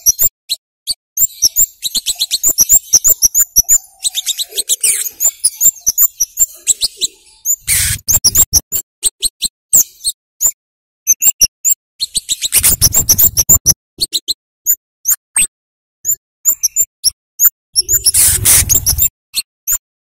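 Flowerpecker (cabean / kemade) calling in rapid runs of sharp, very high 'cit' chips, the hard call that keepers play as a lure. Three louder, noisier bursts break in, near 8 s, 13 s and 18 s.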